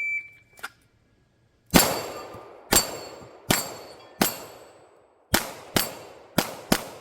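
Shot timer beep, then eight gunshots at an uneven pace, with the steel plates of a Texas Star target ringing after the hits.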